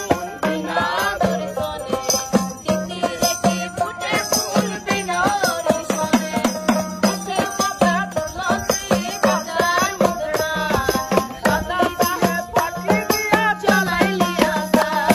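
A Bengali folk song sung by a woman, accompanied by a banjo and a tambourine whose jingles shake in a steady beat.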